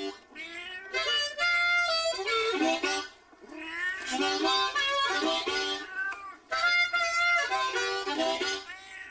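Background music: a reedy melodic phrase of stepped notes, repeating about every three seconds.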